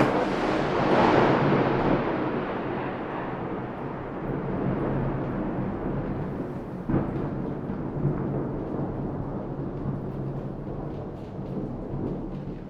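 A sudden sharp thunderclap, then a long rolling rumble of thunder that slowly fades, with a second smaller crack about seven seconds in.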